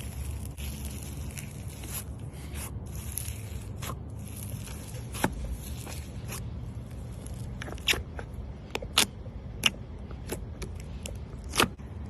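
Slime being mixed: a sticky crackling with sharp pops, which come more often in the second half.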